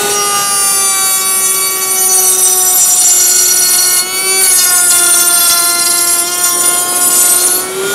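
Router spinning at full speed in a Bosch benchtop router table, a loud, steady high whine as a board is fed along the fence and cut. Its pitch sags slightly under the load of the cut and recovers briefly about four seconds in before sagging again.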